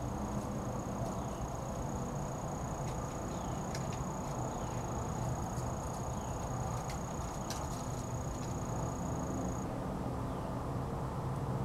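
An insect trilling on one steady high note, which cuts off about two seconds before the end, over a steady low background rumble.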